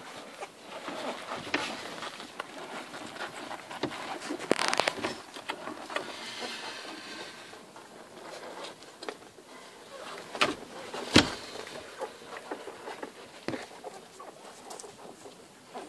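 Irish red and white setter puppies suckling at their mother: an irregular run of small wet clicks, snuffles and rustles, with a louder rustle near five seconds in and a sharp knock about eleven seconds in.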